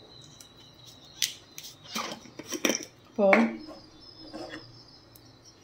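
Metal spoon clinking a few times against the inside of a ceramic mug.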